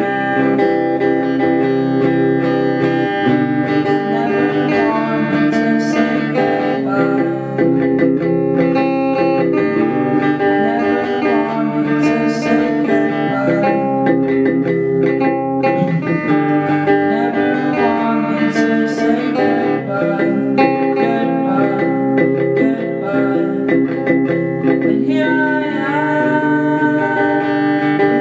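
A song played on guitar with a voice singing over it, continuing without a break.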